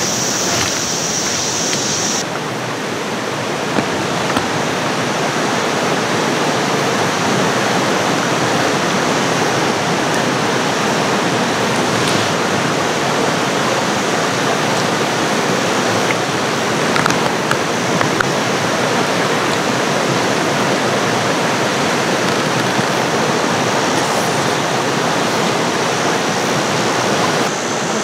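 Shallow mountain creek running over rocks: a steady, even rush of water. A higher hiss laid over it cuts off suddenly about two seconds in.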